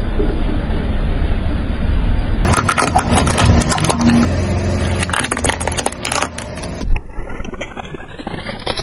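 A car tyre rolling slowly over small objects on asphalt, with a low rumble from the car and a run of crunching and crackling from about two and a half seconds in as the items are crushed. The sound changes abruptly about seven seconds in.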